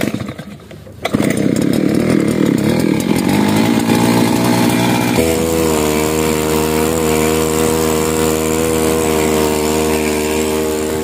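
Small air-cooled two-stroke outboard engine pull-started by hand, catching about a second in. It runs rough for a few seconds, then settles into a steady, even-pitched run with the skiff under way.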